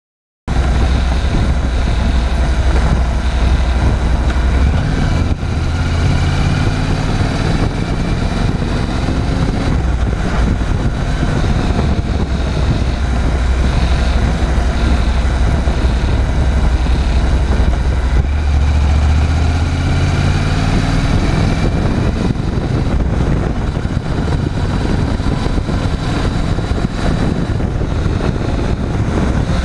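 Honda NC750X motorcycle's parallel-twin engine running steadily, with a few slight rises and falls in pitch.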